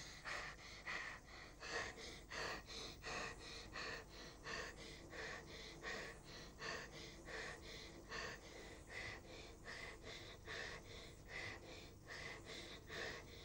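A person's fast, rhythmic gasping breaths, short and evenly spaced, going on without a break until they stop near the end.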